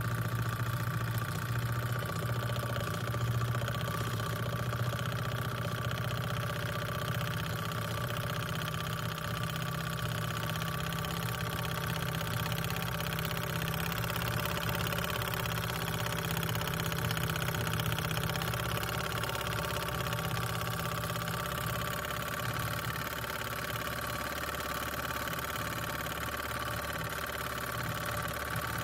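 Small brass live-steam model boat engine running steadily with its propeller spinning, making a steady hum. The low part of the hum weakens about three-quarters of the way through.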